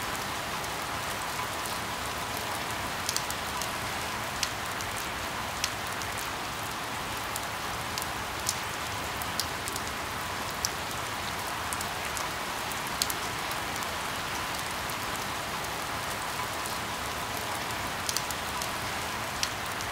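Steady rain falling on a surface: an even hiss, with a few sharp drop taps scattered through it.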